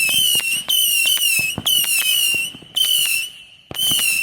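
A consumer fireworks cake firing whistling shots: a rapid run of shrill whistles, each about half a second long and wavering slightly down in pitch, about five in a row, with sharp crackling pops among them.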